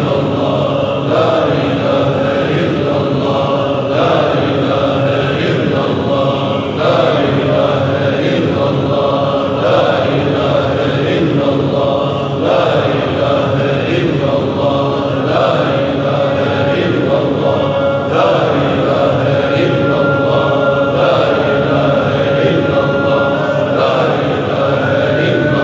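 A congregation of men chanting traditional Islamic zikr (dhikr) together, repeating a rhythmic phrase over and over.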